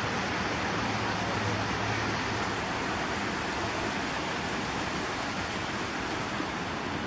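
Steady rushing hiss of flowing water in a garden stream, even and unbroken.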